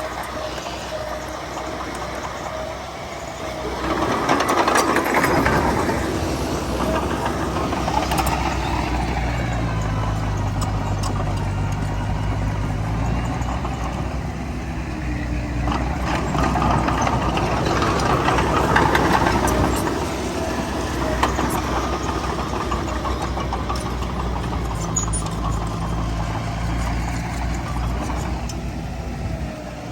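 Heavy diesel engines of earthmoving machinery (bulldozer and dump trucks) running steadily, swelling louder about 4 seconds in and again from about 16 to 20 seconds.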